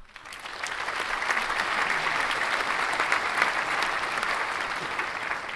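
Crowd applauding, building over the first second and easing off near the end.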